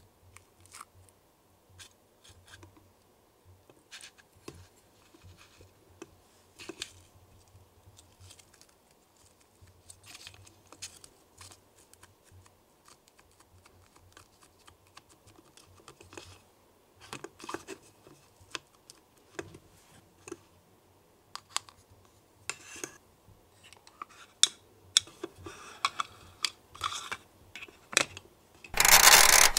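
Small clicks, taps and soft scrapes of a small plastic spatula and fingertips working thick batter into a crinkly foil baking cup, growing busier in the second half. Near the end comes a louder rush of noise a little under a second long.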